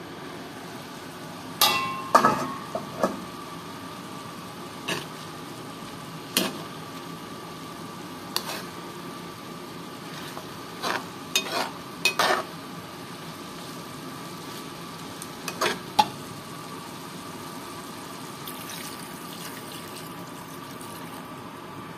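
A glass pot lid is lifted off a frying pan with a clank about two seconds in. Then a metal spoon stirs chicken stew in the pan, knocking and scraping against it now and then, over the steady sizzle of the simmering stew. Near the end, water is poured into the pan with a soft splashing hiss.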